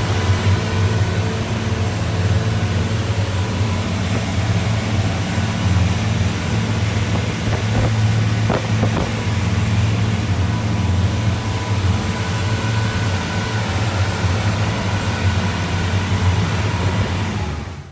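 Princess 57 motor yacht under way: a steady low engine hum with a broad rushing noise over it, cutting off abruptly at the end.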